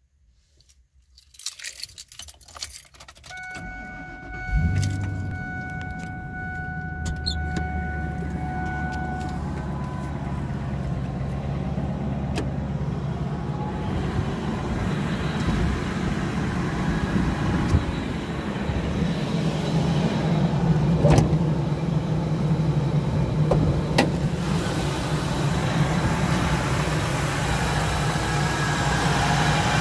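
Keys jangle in the ignition, a steady electronic tone sounds for several seconds, and about four and a half seconds in the 2000 Ford F-250's 5.4 L Triton V8 cranks and starts, then settles into a steady idle. A couple of sharp clicks sound over the idle later on.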